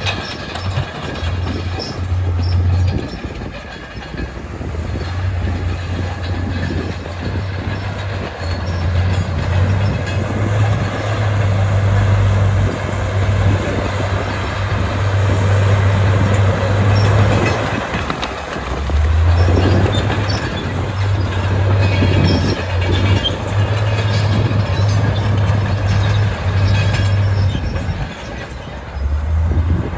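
Bulldozer working: its diesel engine running with a low drone that surges and drops every few seconds, over continuous clanking and grinding from the steel tracks and pushed rock.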